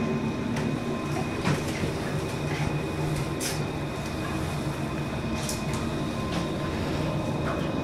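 Steady mechanical hum with a faint high whine, broken by a few faint clicks.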